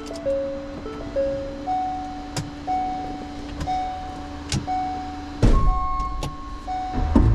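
Background music: a simple melody of held notes over a steady low drone, with sharp percussive hits and heavier low hits in the last couple of seconds.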